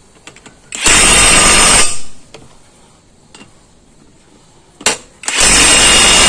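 Cordless impact wrench running in two bursts as it tightens a car wheel's lug nuts: one of about a second, then a longer one starting near the end. A sharp click comes between them.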